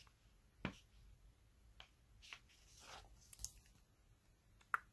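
Faint scattered clicks and light paper rustling of comic book pages being handled and turned.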